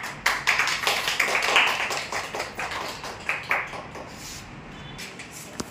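A small group of people clapping their hands, dying away after about three and a half seconds, with one lone sharp clap or tap near the end.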